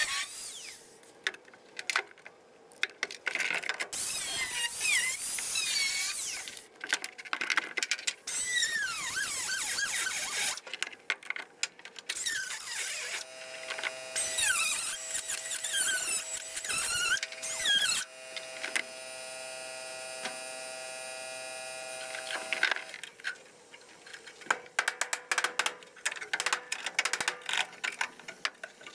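Grinder cutting sheet steel in bursts, the disc squealing against the metal. About two-thirds of the way through the tool runs steadily with an even whine for a few seconds, then short irregular knocks and clatter of metal being handled.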